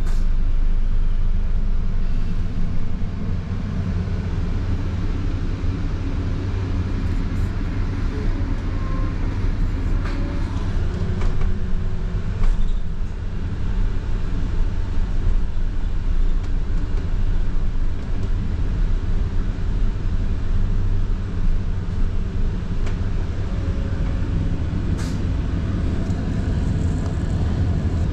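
A London bus riding along, heard from inside: a steady low engine and road rumble, with a few faint clicks and rattles.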